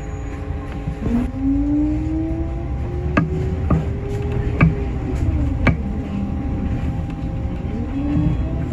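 Inside a city bus as it accelerates: a drivetrain whine rises in pitch, levels off and drops away after about five seconds, then rises again near the end. Underneath is a steady low rumble from the engine and road, with occasional knocks and rattles from the cabin.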